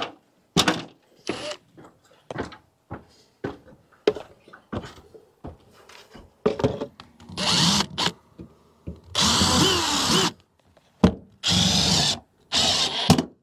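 Scattered short knocks from climbing a ladder, then a power drill running in four short bursts from about seven seconds in, driving mounting screws into the shop wall.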